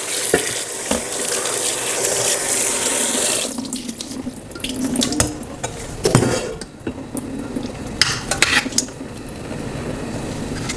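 Kitchen tap running into the sink as oysters are rinsed. The water stops about three and a half seconds in, followed by scattered clicks and knocks of things being handled in the sink.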